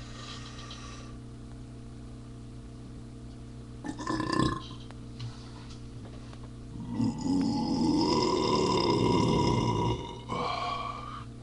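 A man's deliberate burps, brought up with Colt 45 malt liquor: a short burp about four seconds in, then a long drawn-out burp lasting about three seconds, and a shorter one near the end. A steady electrical hum sits underneath.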